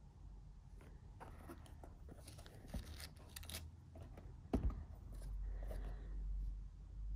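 Hands handling a pair of leather derby shoes fitted with wooden shoe trees on a soft fabric surface: light rustles and scrapes, a sharp knock about four and a half seconds in, then a low rumble of handling noise near the end.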